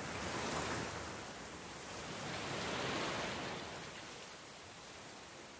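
A steady rushing noise with no tune or distinct events, swelling twice and fading away over the last couple of seconds.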